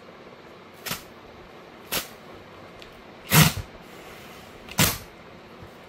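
Cardboard tear strip being ripped along a shipping box in four short pulls about a second apart, the third the loudest.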